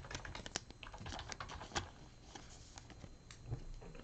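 Light, irregular clicks and taps of a stack of trading cards being handled and flipped through by hand.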